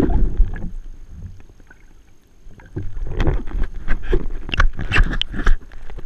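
Sea water sloshing and churning around a camera held underwater, muffled and low at first, quieter for a moment about two seconds in, then sharper crackling splashes as the camera comes up through the surface.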